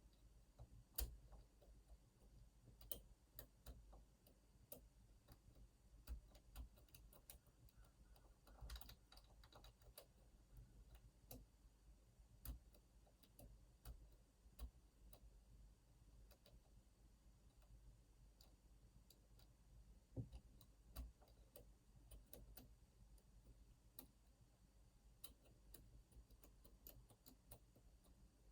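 Faint, irregular small clicks and ticks of lock picks working the pins of an Opnus TEX lock cylinder, over a low steady hum.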